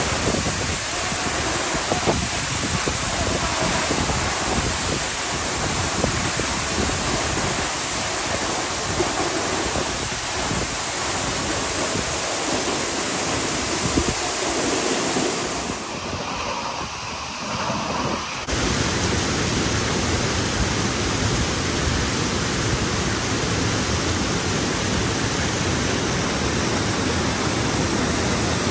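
Waterfall: a steady rush of falling water. It turns duller for a couple of seconds past the middle, then comes back full.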